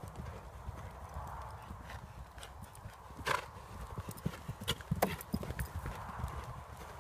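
A horse's hoofbeats thudding on a sand arena at canter, in a steady repeating rhythm, with a couple of sharp clicks midway.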